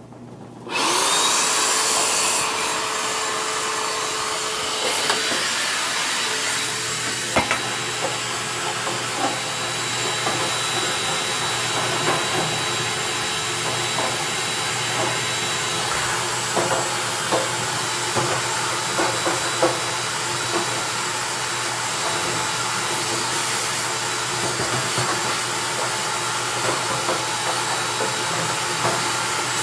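Vacuum cleaner switched on about a second in and running steadily with a thin high whine, sucking lint build-up out of a dryer's blower housing; small clicks and rattles of debris going up the hose throughout.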